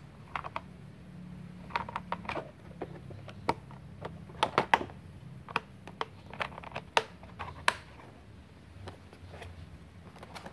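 Irregular clicks and knocks of plastic parts as hands work inside a Multipro auto-darkening welding helmet, over a low steady hum.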